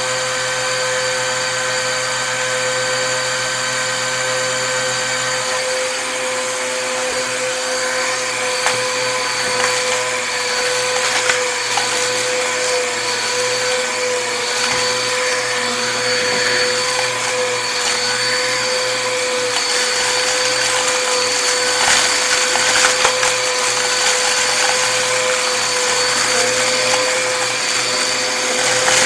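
Upright vacuum cleaner running with a steady motor whine. From about eight seconds in comes a constant crackling as crunchy debris is sucked up from the carpet.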